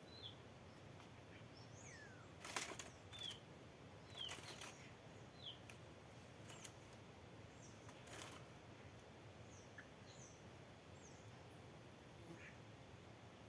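Small birds giving faint, short, high chirps scattered throughout, with brief flutters of wings as they fly in and out, the loudest flurry about two and a half seconds in and others around four and eight seconds.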